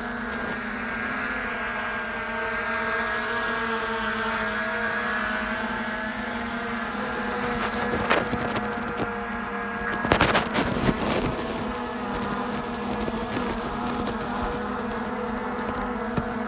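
Parrot ANAFI AI quadcopter's propellers buzzing steadily with a constant pitch while it hovers almost still. A few brief knocks come about halfway through.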